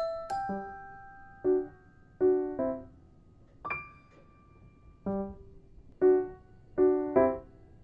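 Background music: a soft piano-like keyboard playing single notes and short chords that fade out, with gaps between them.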